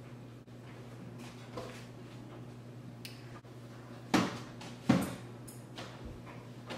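Two sharp knocks about a second apart over a steady low hum, the noise of someone moving about at an open kitchen cabinet.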